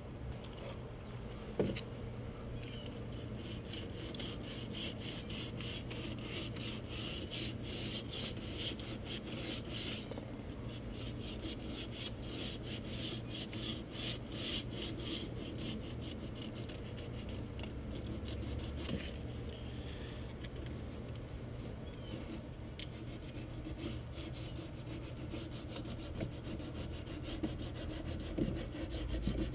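Sandpaper rubbed back and forth by hand over painted wood, a steady run of scratchy strokes wearing the paint back to distress the finish. A single knock about two seconds in.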